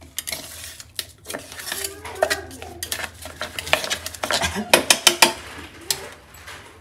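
A red-handled kitchen knife scraping and clinking against the inside of a stainless steel mixer-grinder jar, loosening thick ground masala paste from its walls between grinds. Repeated scrapes and sharp clinks, the loudest cluster about five seconds in.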